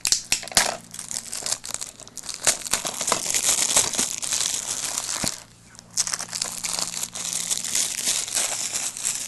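Plastic shrink-wrap being torn and peeled off a DVD case: loud, continuous crinkling and crackling of cellophane, with a brief pause about halfway through.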